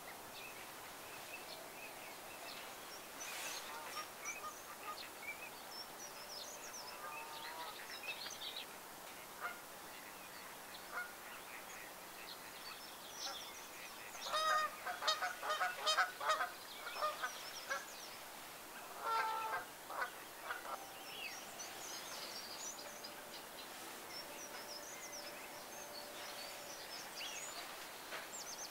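Waterfowl calling: a burst of loud, repeated calls about halfway through and a shorter bout a few seconds later, over scattered high chirps of small birds.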